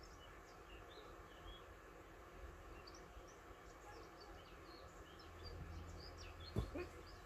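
Faint birdsong: many short chirps from small birds, over a low steady background rumble. A single knock about six and a half seconds in.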